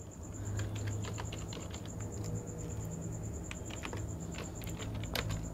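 Computer keyboard typing: an irregular run of quiet key clicks over a steady low electrical hum.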